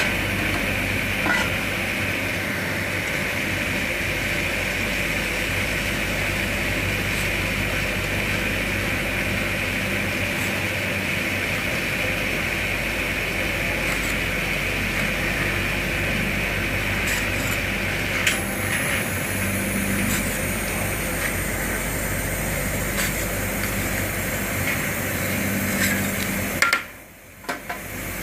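Steady hum of a rolled ice cream machine's refrigeration unit running, with a few light clicks. The sound drops out briefly near the end.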